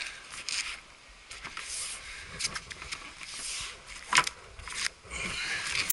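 Irregular scraping and rustling as a paddleboard and its rack are handled with gloved hands, with a sharp knock about four seconds in.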